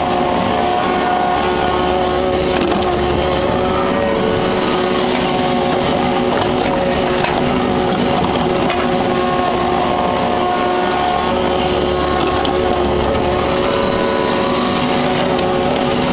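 Kubota KX61-3 mini excavator's diesel engine and hydraulics running steadily, with scattered knocks as the bucket works concrete rubble.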